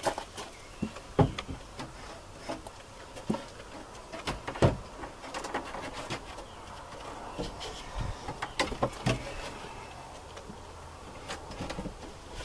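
A plywood sheet being handled and set onto a wooden 2x4 bed frame: scattered knocks and thumps of wood on wood, the loudest about a second in and again about four and a half seconds in, with light scraping between.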